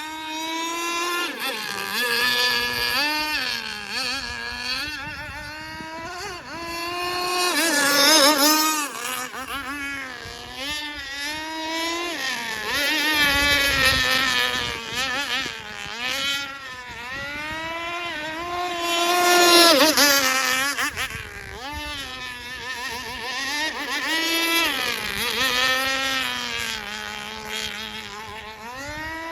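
Small fuel-powered engine of a radio-controlled V-hull model boat running on the water, its high buzzing pitch rising and falling constantly as the throttle is worked. It grows loudest twice, about eight seconds in and again near twenty seconds, as the boat passes close.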